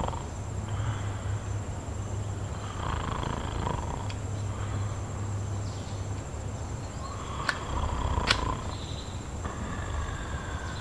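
A man snoring in slow, long drawn breaths, with two light clicks about a second apart in the second half.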